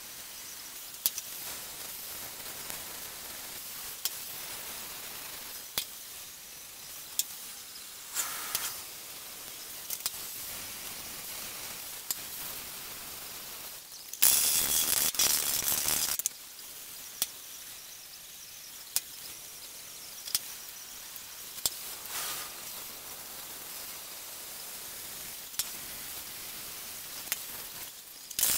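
Welding on a steel car wheel arch: a steady hiss with scattered sharp clicks. About halfway through, a much louder harsh burst lasts about two seconds.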